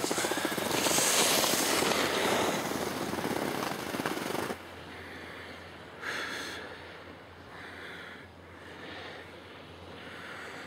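Skis scraping and rattling over the snow, with wind on the microphone, during a downhill run; the noise stops abruptly about four and a half seconds in as the skier stops. After that only faint wind noise with a few soft swells remains.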